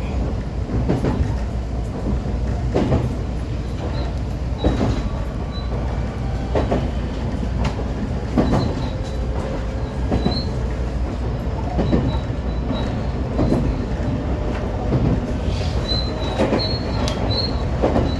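125 series electric railcar running, heard from the cab: a steady rumble with a wheel clack over the rail joints every couple of seconds. A faint high wheel squeal comes in over the last few seconds.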